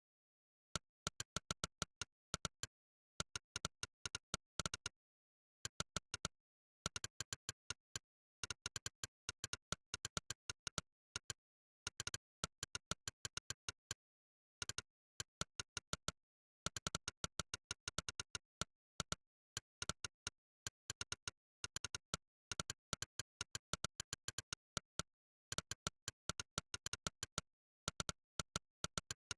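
Monkeytype's synthetic 'click' typing sound effect: one short, sharp click per keystroke, in quick runs of about eight to ten a second broken by short pauses, with dead silence between clicks.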